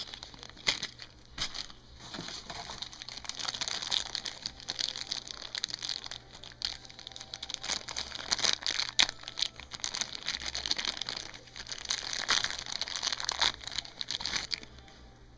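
Packaging being handled during an unboxing, crinkling and rustling irregularly with many sharp crackles and clicks, stopping shortly before the end.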